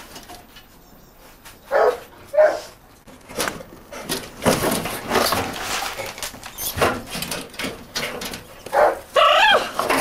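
Terrier giving short barks and whines, a pair about two seconds in and more near the end, one of them bending up and down in pitch, with rustling noise in between.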